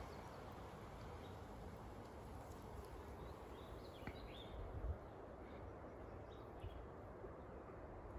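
Quiet outdoor background noise with a few faint bird chirps and a soft bump near the middle.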